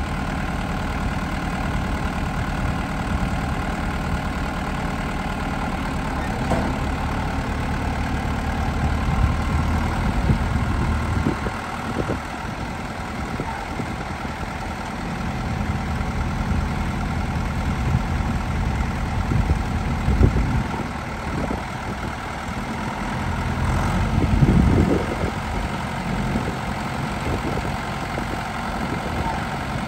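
1974 Deutz D7206 tractor's air-cooled six-cylinder diesel running at low speed as the tractor drives slowly. The sound is steady, with a couple of brief louder swells in the last third.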